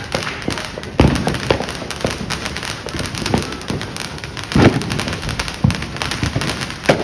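Fireworks going off: continuous crackling and popping with several loud booms, the biggest about a second in and another midway.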